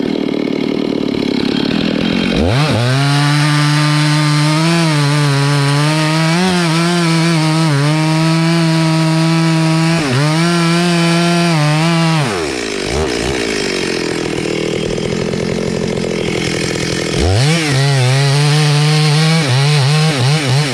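Stihl chainsaw cutting into the base of a rain tree trunk at full throttle, its pitch wavering slightly under load. About twelve seconds in it drops back to a low idle, then revs up again about five seconds later and cuts on.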